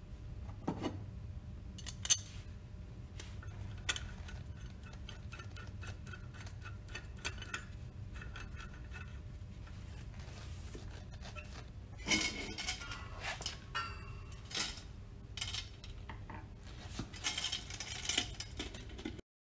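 Small metallic clinks, clicks and scrapes as a fork tool and sheet-metal coupling guard are fitted and screwed onto a pump's motor stool with a screwdriver, over a low steady hum. The clinks come scattered at first and in a busier run in the second half, and the sound cuts off suddenly near the end.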